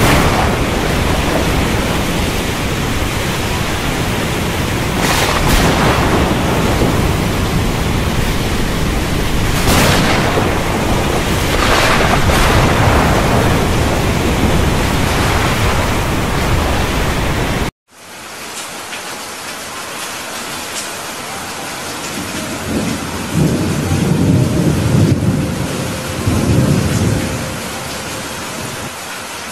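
A thunderstorm with heavy rain: a dense, steady rain hiss with a few brief louder surges. About two-thirds of the way through it cuts abruptly to a lighter rain, and low rumbles of thunder roll in near the end.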